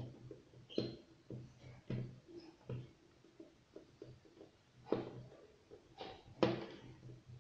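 Faint, irregular clicks and taps of a small screwdriver driving tiny screws into a tablet's motherboard, with the loudest knocks about five and six and a half seconds in.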